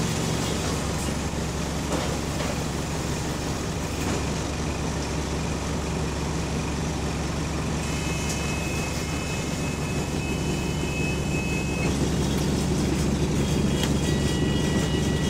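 Bus engine idling with interior parts rattling, then running louder from about 12 s in as the bus pulls away; a high steady whine sounds for about four seconds midway.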